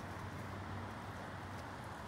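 Steady outdoor background noise: an even hiss with a low hum underneath, with no distinct animal calls or impacts.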